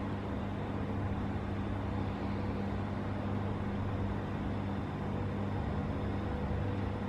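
Steady low hum with a hiss over it, an unchanging background noise.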